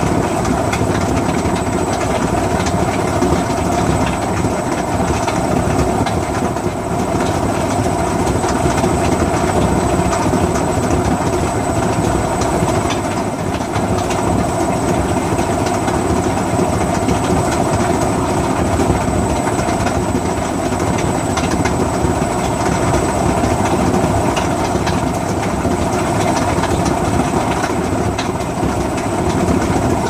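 Front-loading washing machines, a Samsung and a Whirlpool, running steadily near the end of a fast-wash cycle: a continuous rumbling and rattling drum with a thin, steady high whine over it.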